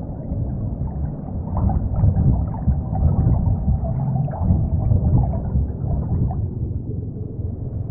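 Muffled underwater ambience: a dense, low rumble with gurgling. It grows louder about two seconds in and eases near the end.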